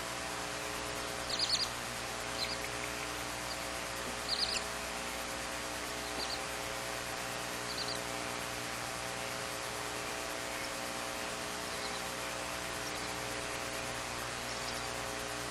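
Newly hatched barn owl chick giving short, high peeps, the two loudest about a second and a half and four and a half seconds in, fainter ones scattered after, over a steady electrical hum and hiss.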